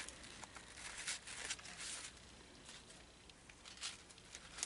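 Faint rustling and soft crinkles of 3-inch ribbon being folded and creased by hand, in scattered short scrapes.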